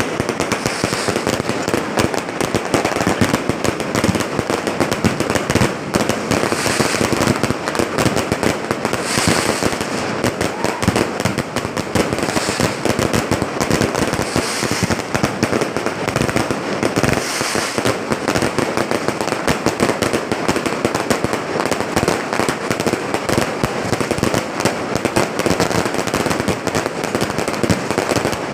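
Fireworks display: a dense, continuous barrage of bangs and crackling shell bursts with no pause.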